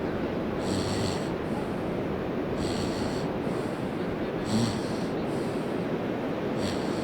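A person breathing heavily close to the microphone: a strong breath about every two seconds, each followed by a softer one, over a steady rushing noise.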